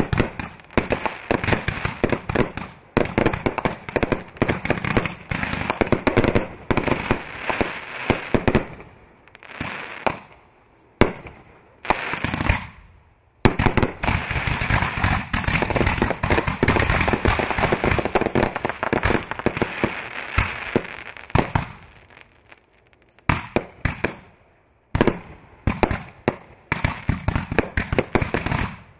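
Consumer aerial fireworks in a finale: rapid, overlapping bangs of shells bursting in the sky, with a few brief lulls about nine, twelve and twenty-two seconds in.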